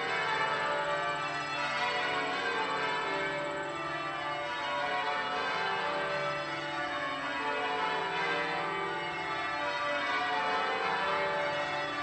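Cathedral tower bells ringing, many bells struck one after another in quick succession, their tones overlapping and ringing on.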